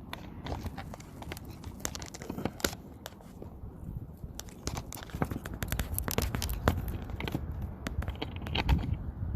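Irregular clicks, scrapes and small knocks of hands and tools working a retaining lock ring onto the back of a garage door key switch. The ticks come faster in the second half, with a low rumble of handling.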